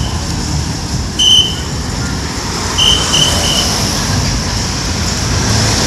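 Outdoor roadside traffic noise, a steady low rumble and hiss. Short high-pitched pips sound once about a second in and twice more around three seconds in.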